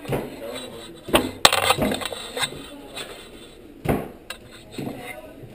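A few sharp knocks and clinks of hard objects: a cluster of them about a second in, the loudest part, then a single knock near four seconds and a lighter one just after.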